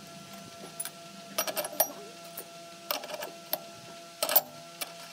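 Steel cutter head and spacer collars clinking and knocking as they are fitted onto a spindle moulder's spindle. About a dozen sharp metal clinks come in small clusters, the loudest about four seconds in, over a faint steady hum.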